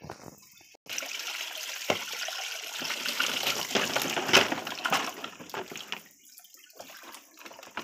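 Water splashing and streaming off a large plastic toy truck lifted out of a shallow paddling pool, loudest about four seconds in. It dies down to quieter sloshing about six seconds in.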